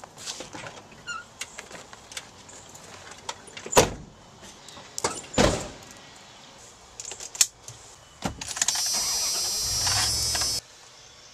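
Dodge Ram Van being got into and started: light clicks and handling noises, two heavy thumps like its doors shutting, then keys at the ignition and a steady whir for about two seconds that cuts off suddenly.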